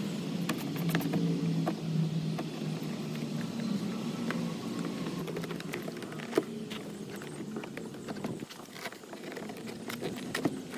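Plastic door-card clips and trim on a car door being pried and handled: scattered sharp clicks and knocks, one louder snap about six seconds in, over a steady low hum.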